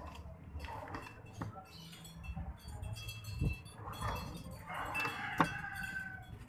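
Keyboard tray on metal ball-bearing drawer slides being pushed in and pulled out by hand: a metallic rolling rattle with a few sharp clicks, the sharpest about five seconds in.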